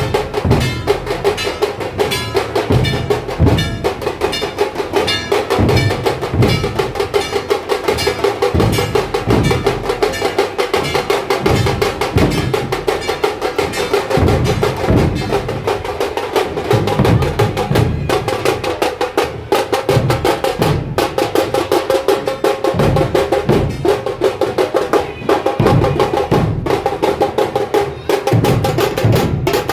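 Dhol-tasha ensemble playing: rapid tasha drum strokes rattle over heavy, deep dhol beats.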